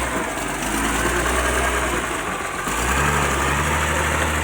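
Caterpillar D3G bulldozer's diesel engine running steadily, its note changing about three seconds in.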